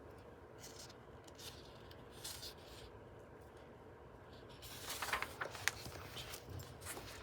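Faint paper rustling and light taps as the pages of a book are handled and turned, growing busier about five seconds in.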